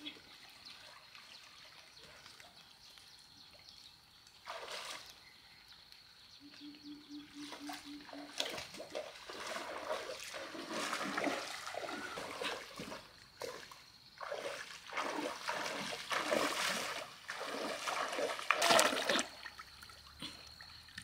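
Hands splashing and sloshing through shallow muddy pond water while feeling for fish. The splashing comes in irregular bursts: one about four seconds in, then almost constantly through the second half, loudest near the end.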